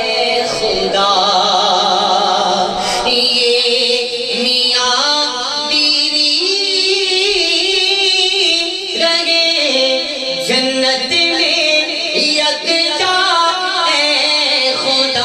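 A man singing an unaccompanied devotional sehra song (naat style) into a microphone, amplified over a PA. His voice is held and wavering, with long ornamented melismatic lines.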